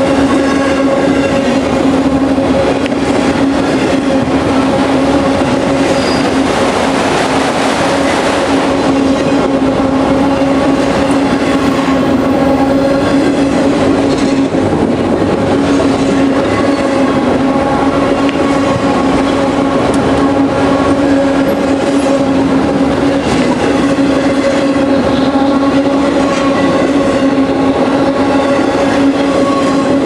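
Autorack freight cars rolling past close by: loud, steady rumble and rattle of steel wheels on rail, with a steady droning ring over the rush.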